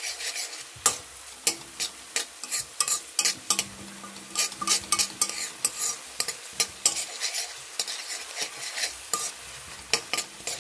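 Metal spatula stirring and scraping chopped vegetables around a kadhai, several irregular scrapes a second over the steady sizzle of the vegetables frying in hot oil.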